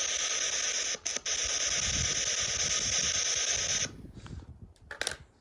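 Steady radio static hissing from a ghost-hunting spirit box, breaking off twice for a split second about a second in, then cut off suddenly just before four seconds. A single short click near the end.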